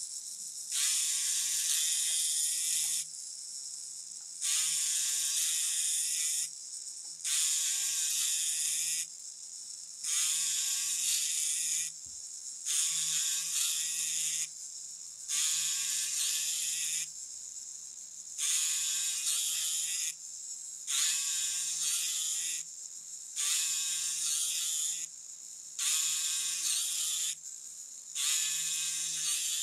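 Power checkering tool's 90-degree cutter buzzing as it cuts checkering lines into a walnut gunstock. It makes about eleven passes of roughly two seconds each, with short pauses between them.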